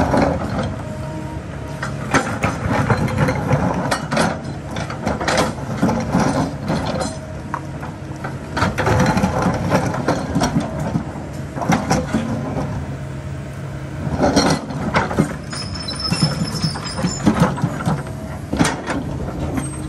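Kobelco excavator at work: its diesel engine runs steadily under a stream of irregular clanks, knocks and scrapes of metal against rock. A brief high squeal comes about two-thirds of the way in.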